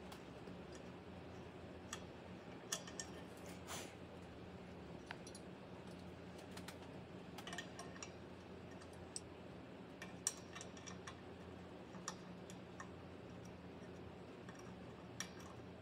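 Irregular small clicks and taps as a microphone shock mount is handled and its knurled threaded adaptor is turned on a boom arm's metal stud, over a faint steady low hum.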